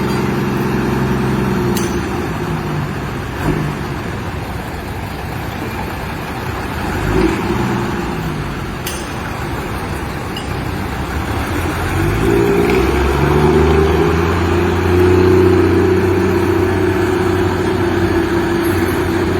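Intercity bus engine running through a loud aftermarket exhaust. Its pitch dips and climbs around the middle as the engine changes speed, then settles into a louder, steady drone for the last several seconds.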